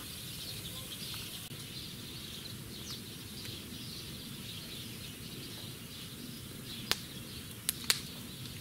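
Wood burning in a steel fire basket, with three sharp crackling pops near the end over a low steady hiss. Small birds twitter throughout in the background.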